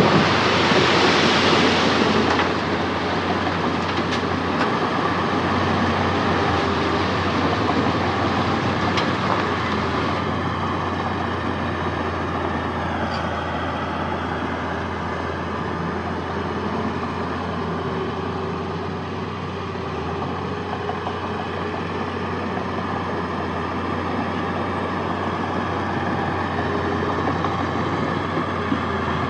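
Heavy diesel earthmoving machinery running steadily, with a steady low engine hum under a rough mechanical noise. A louder rushing noise fills the first couple of seconds, then eases off.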